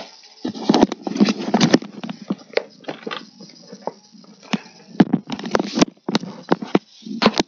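Clear plastic packaging being handled, crinkling and rustling in irregular sharp crackles.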